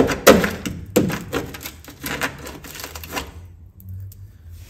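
Rusted sheet steel of a Daihatsu Fourtrak sill being torn apart by hand: a quick, irregular run of sharp cracks and snaps that stops about three seconds in. The sill is rotten through underneath.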